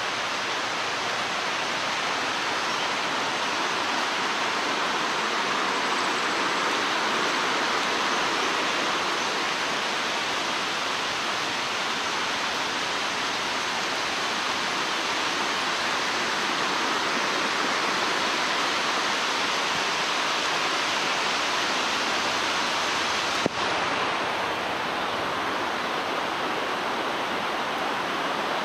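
Heavy monsoon rain falling steadily, an even hiss with no letup. One brief click about three-quarters of the way through.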